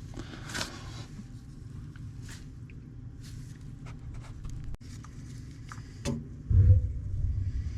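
Scattered clicks and knocks, then about six and a half seconds in a gas water heater's burner lights with a sudden low whoomp and goes on burning with a steady low rumble.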